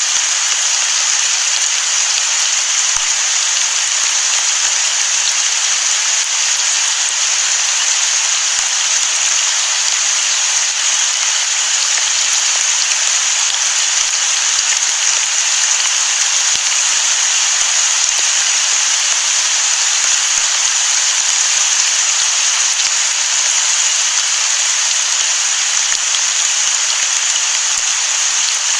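Rain falling on the sea: a steady, even hiss of rain with no change in intensity.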